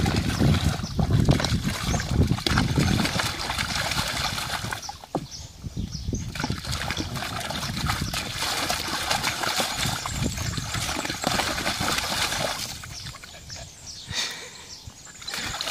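A dog pawing and splashing water in a plastic clamshell paddling pool: repeated sloshing and splatter, heaviest in the first few seconds, with brief lulls about five seconds in and near the end.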